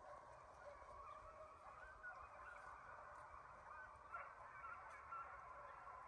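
A pack of hunting hounds baying faintly in the distance while running a deer: a continuous jumble of overlapping cries, with a few slightly louder ones standing out.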